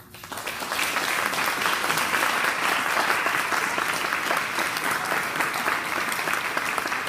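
Audience applauding: the clapping starts suddenly, swells over about the first second, then holds steady and dense.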